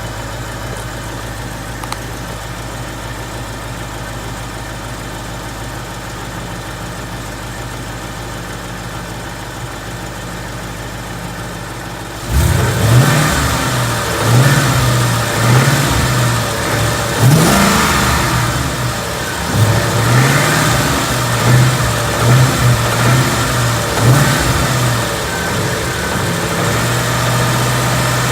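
Ford Coyote 5.0 V8 idling steadily on a cold start. About twelve seconds in it gets suddenly louder and revs up and back down several times, then holds a steadier, higher note. No clear tick or piston slap stands out; the owner judges it sounds healthy.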